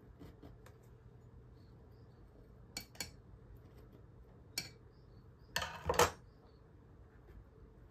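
Metal terrarium tools clinking: a few light clicks, then a louder clatter about six seconds in as long steel tweezers are laid down on a wooden tabletop.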